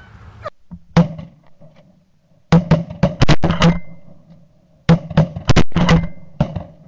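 A volley of shotgun blasts from several hunters firing at Canada geese. There is a single shot about a second in, then two rapid strings of about half a dozen shots each, two and a half and five seconds in.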